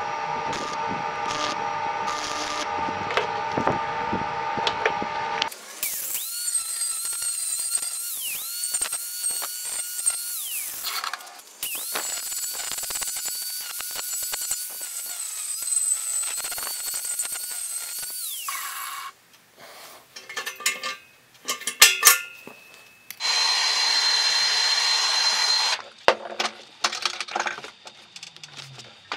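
Stick welding crackles over a steady hum for about five seconds. Then an angle grinder with a cutting disc whines in two long runs, winding up at the start of each and down at the end. After that come scattered metal knocks and taps, and a steady hiss for a few seconds near the end.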